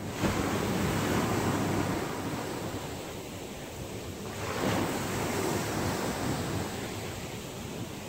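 Ocean surf: waves breaking and washing in, swelling twice, once just after the start and again about halfway through.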